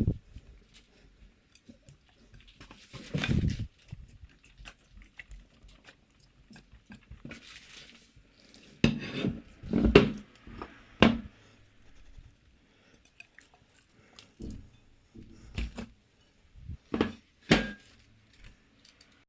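Slime being squished and worked by hand: irregular wet squelches and crackles with quiet gaps between them, loudest in a cluster around ten seconds in.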